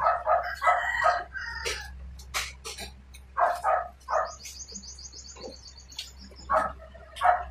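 Roosters crowing several times, with a small bird's rapid high trill about four seconds in. Sharp clicks of eating by hand come in between.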